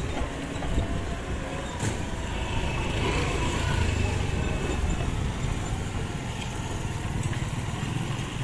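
Mixed road traffic crossing the tracks: motorcycles and scooters running past with their small engines, amid a steady low rumble of engines and tyres.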